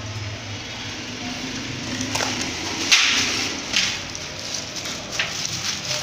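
Cardboard boxes and packaging being handled and shifted: rustling and scraping with a few sharper knocks, the loudest about three seconds in.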